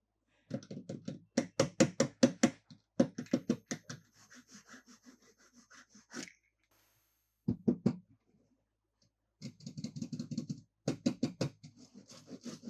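Rapid tapping and knocking by hands on toys or their packaging, in several bursts of a second or two at about ten taps a second, with short pauses between bursts.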